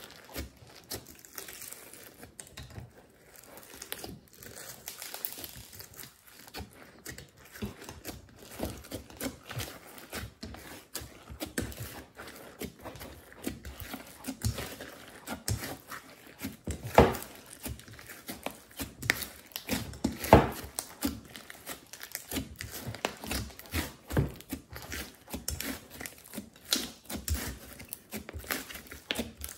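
Hands squishing, pressing and folding a large mass of glossy slime, giving a dense run of wet clicks and crackles. Two louder sharp pops come past the middle.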